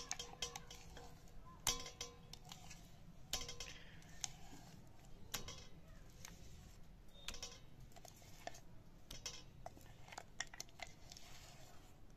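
Irregular clicks, clinks and scrapes of a stainless-steel mixer jar and spatula as ground dal batter is scraped out into a steel bowl, a few knocks ringing briefly like struck metal.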